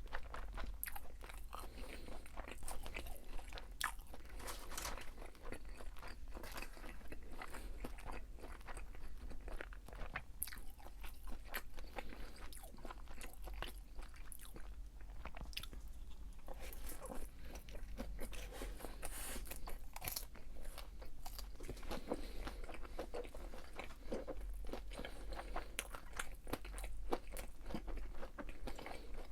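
A person chewing crisp fried food with many irregular crunching bites.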